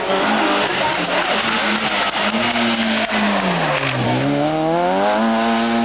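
Rally car engine at speed over heavy road noise. Its revs drop to a low about four seconds in, climb steeply again, and hold high near the end.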